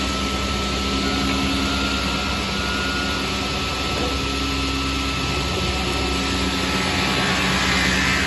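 Multi-blade rip saw (multiple slitting machine) running steadily: a constant machine hum with a thin, steady whine above it.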